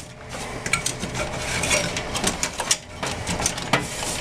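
Power supply cables and plastic connectors being handled and plugged in inside a desktop computer case: a scattered run of light clicks, taps and rattles.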